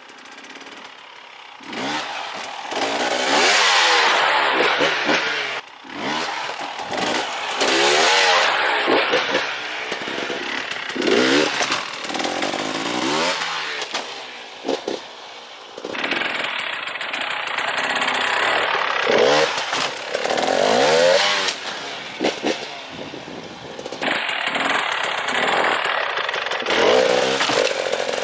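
KTM 300 XC-W TPI's single-cylinder two-stroke engine revving in repeated bursts, its pitch rising and falling with the throttle as the bike is ridden. Quieter for about the first two seconds, then loud revving throughout.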